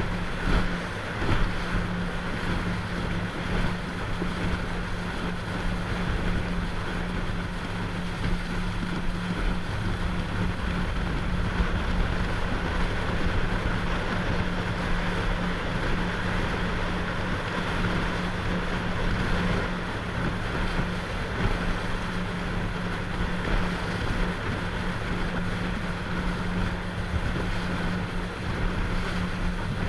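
A motorboat's engine droning steadily while under way, with wind on the microphone and the rush of water against the hull.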